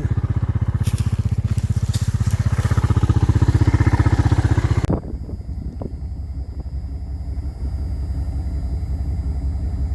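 A tractor engine runs hard with a fast, even pulsing as it pulls a road drag. About halfway through, the sound cuts abruptly to a steadier, duller truck engine rumble heard from inside the cab as it tows a small drag.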